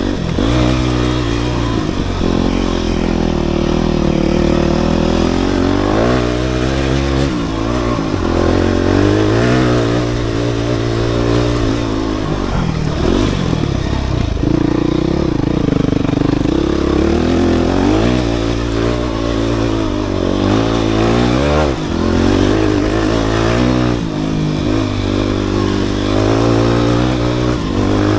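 Dirt bike engine being ridden on a dirt trail, its pitch climbing and dropping over and over as the throttle is opened and closed.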